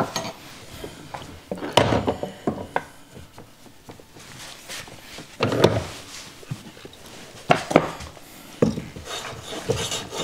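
Wooden knocks and short rubbing sounds as a wooden workpiece and hand tools are handled on a wooden workbench. Near the end, a hand plane starts cutting along the board's edge with a hissing scrape.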